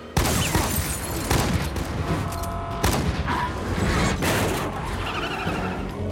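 Film action soundtrack: a burst of gunfire with sharp impacts over heavy rumble and music, starting abruptly just after the start and running on densely.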